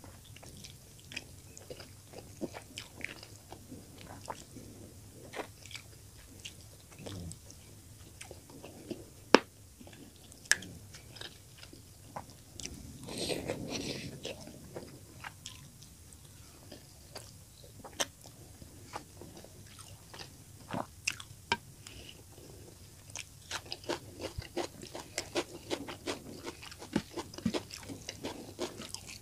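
Close-up chewing and smacking of a mouthful of spicy fish curry and rice, with scattered wet clicks and crunches and one sharp click about nine seconds in. Near the end comes a denser run of squishing as fingers mix rice into the curry.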